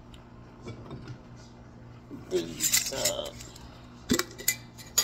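Hard kitchenware being handled and moved. There is a rustle and clatter about halfway through, then a few sharp clinks near the end.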